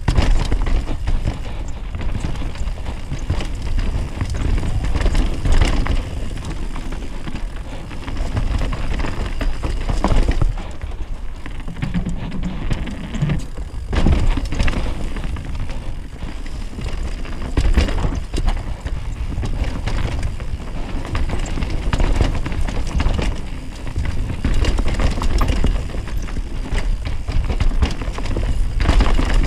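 Downhill mountain bike ridden fast down a dirt singletrack: heavy wind rumble on the camera microphone, with tyres on dirt and the bike clattering over bumps in irregular knocks.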